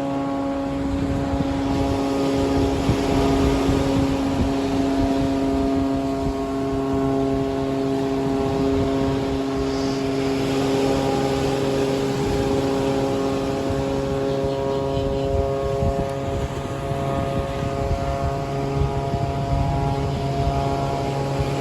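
A motor engine drones steadily at a nearly constant pitch throughout, over the constant wash of surf.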